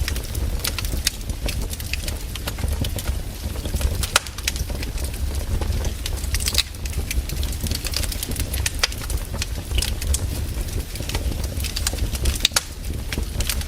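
Firewood burning, crackling with irregular sharp pops and snaps over a low steady rumble.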